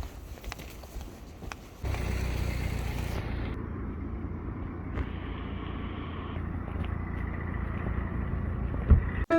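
A steady mechanical hum, like a small motor running, starts about two seconds in and holds even.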